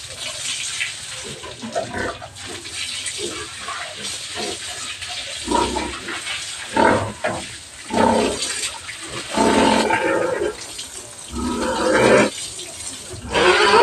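Pigs squealing in a series of loud bursts, growing more frequent in the second half, while a hose sprays water over them with a steady hiss.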